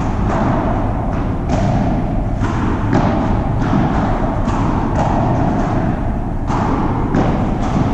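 Padel ball being struck by rackets and bouncing off the court and glass walls in a rally, a sharp knock every half second to a second with a short echo, over a steady low rumble.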